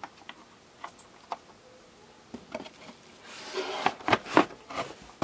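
A few light plastic clicks as a toy car with a loose wheel is handled. From about three seconds in, cardboard rustles and knocks several times as hands rummage inside a cardboard shipping box.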